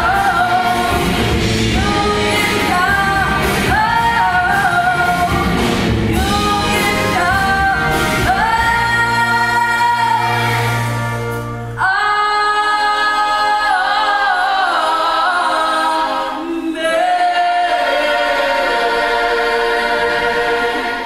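A large stage cast singing in chorus with a live band. About halfway through, the band's bass and drums drop out and the voices carry on with long held notes.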